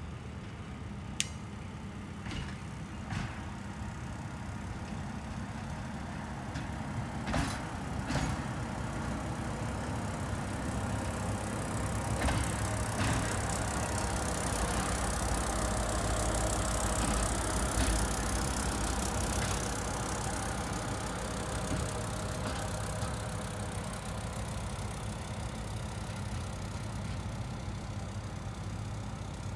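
Plasser & Theurer Duomatic 08-32 C track tamping machine running past on its diesel engine, a steady low drone that grows louder as it comes close about halfway and fades as it moves off. A few sharp clanks are heard as it goes.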